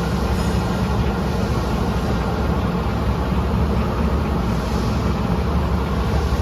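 Large manual engine lathe running under power, a steady low machine hum with no change.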